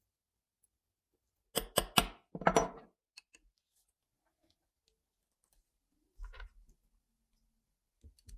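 Sharp metallic clicks and knocks of small metal parts being handled: a quick run of three clicks and a short scrape about a second and a half in, two faint ticks after it, and a brief rattle about six seconds in.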